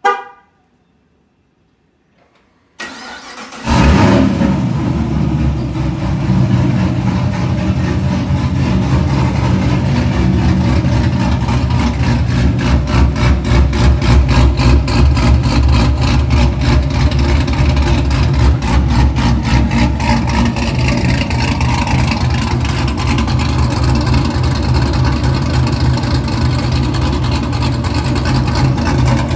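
A short beep, then the Chevy SS's 6.2-litre LS3 V8 with a BTR stage 2 cam cranking for about a second and catching, its revs flaring and then settling into a lumpy, uneven idle. It runs through long-tube headers, an X-pipe and a full exhaust with the electric cutouts open.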